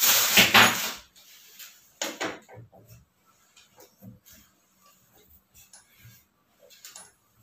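Metal handling sounds from the transit bolts on the back of an LG front-loading washing machine: a loud noisy clatter lasting about a second at the start, then scattered light clicks and knocks as a spanner is fitted onto a lower bolt to unscrew it.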